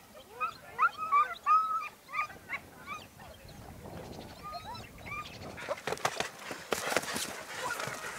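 A pack of harrier hounds giving tongue: many short yelping cries over the first three seconds, thinning out after that. Near the end, a run of sharp hoofbeats as a horse comes in to a jump.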